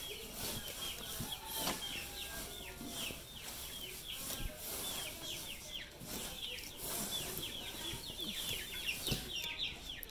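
Birds chirping steadily, a stream of short, high, falling chirps, over the rustle of chopped wheat straw and green fodder being mixed by hand.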